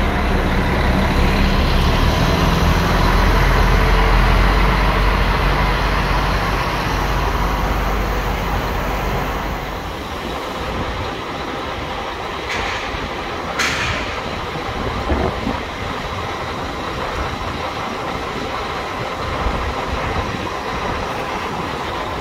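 Diesel bus engine running close by with a deep rumble that fades after about ten seconds, leaving steady lighter traffic noise with two short hisses a little past the middle.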